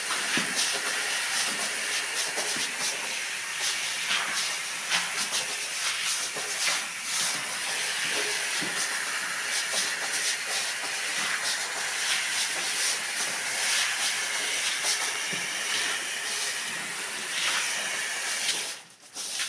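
Pressure-washer water jet hissing steadily onto a wet rug, with the scrape of a stiff brush scrubbing the pile. The spray cuts off suddenly near the end.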